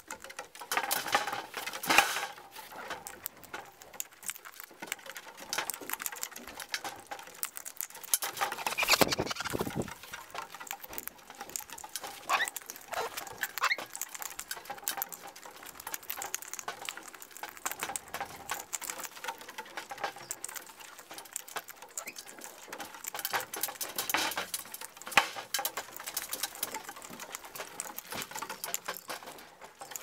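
Australian king parrots cracking sunflower seeds in their beaks and picking at a seed plate: a dense, uneven run of small clicks and crunches. A louder rush of noise comes about nine seconds in.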